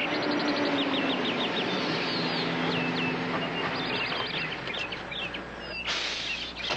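A car's engine slowing as the car pulls up a driveway, its low drone falling in pitch and fading out about four seconds in, over a steady rush of noise. Birds chirp repeatedly with short, quick calls throughout.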